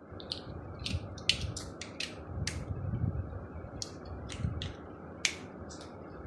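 Small plastic toys clicking and tapping irregularly as they are handled, about a dozen sharp clicks, over low rustling.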